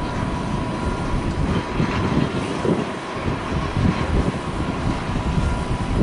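Twin-engine jet airliner's engines at takeoff power during the takeoff roll and rotation: a continuous roar with a crackling low rumble and a faint steady high tone above it.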